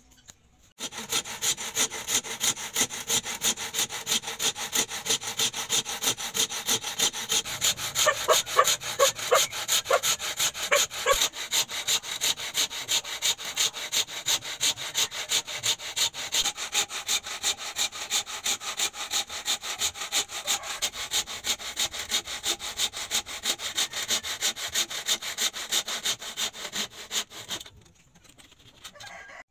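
A hand tool worked steadily back and forth with rasping strokes, about three a second, starting about a second in and stopping near the end. A few short squeaks come with the strokes around eight to eleven seconds in.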